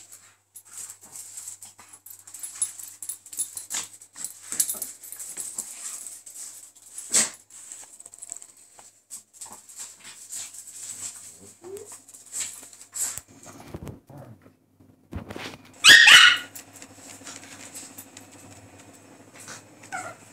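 A Kerry blue terrier and a chihuahua play-fighting on a tiled floor: scuffling with many short clicks, then one sharp, loud bark about three-quarters of the way through.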